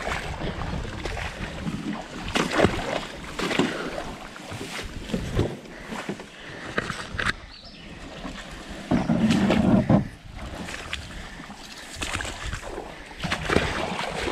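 A loaded canoe being waded and dragged up a shallow, grassy creek: irregular splashing and sloshing from steps in the water, and the hull brushing through reeds and muck. A louder burst about nine seconds in lasts about a second.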